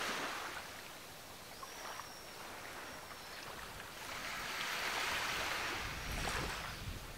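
Ocean waves breaking on a beach: one wash of surf fades away in the first second, then another swell builds and breaks about six seconds in, with a low rumble.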